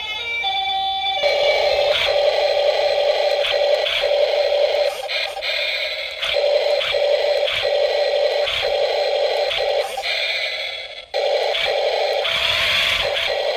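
Electronic sound effects from a battery-powered toy truck: the last notes of a short beeping tune, then a loud, steady, buzzy engine-like drone with faint regular clicks. The drone breaks off briefly twice.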